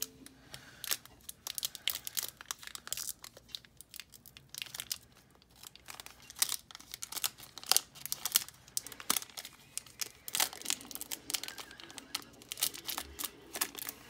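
Foil booster pack wrapper crinkling and tearing as it is handled and ripped open by hand: a dense, irregular run of sharp crackles.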